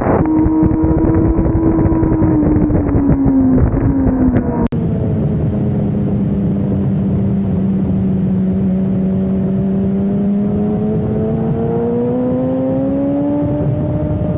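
Sportbike engine heard onboard at speed on a race track, with wind rush. The engine note drops over the first few seconds, holds steady at a lower pitch through a long bend, then rises again near the end as the throttle opens. About five seconds in, the sound cuts off abruptly and switches to a different recording.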